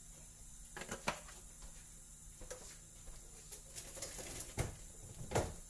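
Faint handling knocks from a plastic cooking-oil bottle as oil is poured into a frying pan and the bottle is set down: a few light clicks about a second in, then two duller thumps near the end.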